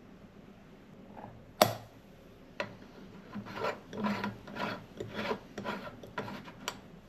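A single sharp clink about a second and a half in, then a run of gritty scraping rasps as the upper chamber of a Bialetti moka pot is twisted and screwed down onto its base.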